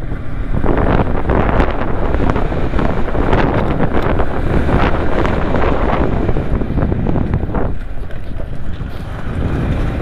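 Heavy wind buffeting on a motorcyclist's microphone while riding, a gusty rush that jumps up about a second in and eases briefly near the end.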